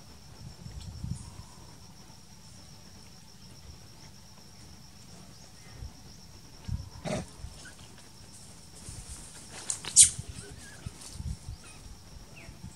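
A steady, high-pitched insect trill, with scattered rustles and knocks. The loudest is a sharp click about ten seconds in.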